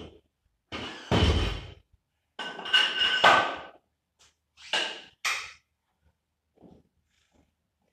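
Weight plates being handled at a barbell: a heavy thud about a second in, then metal scraping and clanking with a ringing tone around three seconds in, then two shorter knocks.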